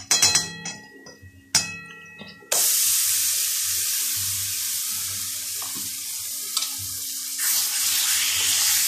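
Metal clinks and ringing as the paste is scraped out of a steel bowl against a steel kadai. About two and a half seconds in, a sudden loud sizzle starts as wet ground cabbage paste hits the hot oil and spices, and it grows louder again near the end as the paste is stirred.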